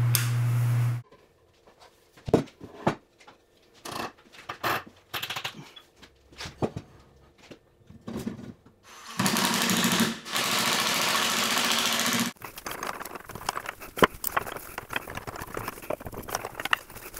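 Hand work on hickory parts for a workbench leg vise. A backsaw cut runs for about a second and stops, then come scattered taps and knocks of wood parts being handled. About nine seconds in there is a three-second stretch of steady rasping as a hole is bored, followed by more light clicks and knocks.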